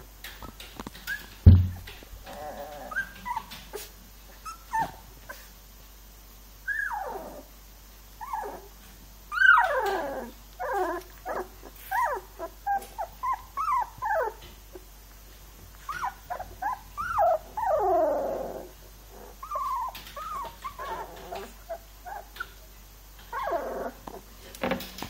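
Three-week-old Labrador retriever puppies whimpering, a run of many short, high cries, most of them falling in pitch. A single thump comes about a second and a half in.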